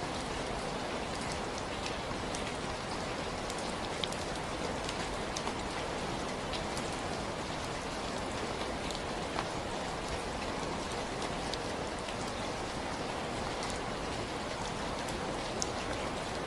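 Steady rain falling, a dense even hiss with scattered distinct drops ticking on a surface.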